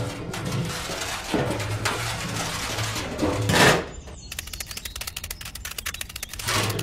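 A deep growling, straining voice effect, loudest just before four seconds in. It gives way to a fast, even run of clicks for about two seconds, then the growling starts again near the end.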